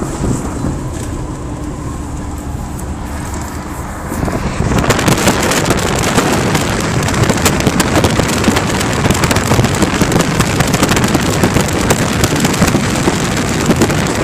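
Four-wheel drive under way: steady engine and road noise, which becomes much louder and turns into a dense crackling rush about four and a half seconds in.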